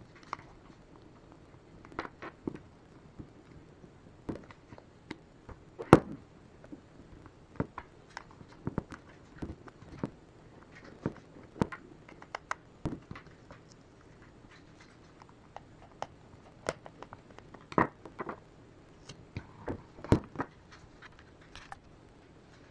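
Irregular clicks, taps and knocks of hands working small machine screws into a plastic headset shell with a screwdriver. The sharpest knock comes about six seconds in.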